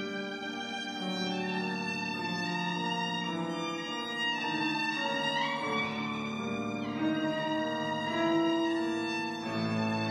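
Violin and grand piano playing classical music together, the violin holding long notes with a slide up in pitch about four seconds in and back down about two seconds later; low piano notes come in near the end.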